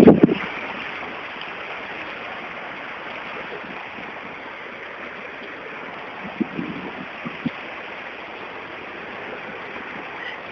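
Steady rushing noise of heavy rain and running floodwater, with a few brief low bumps about six to seven seconds in.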